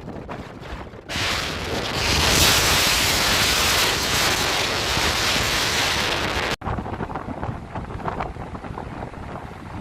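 Gale-force wind buffeting the microphone, with sea surf rushing underneath; the wind blast is strongest in the middle, and the sound changes abruptly twice.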